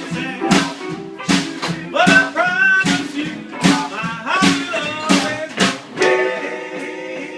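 Live band music: electric guitar lines over drums keeping a steady beat.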